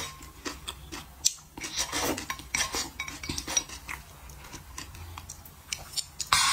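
Close-up slurping and sipping of spicy sauce from the rim of a ceramic bowl, with wooden chopsticks clicking and scraping against the bowl, and a louder rush of noise near the end.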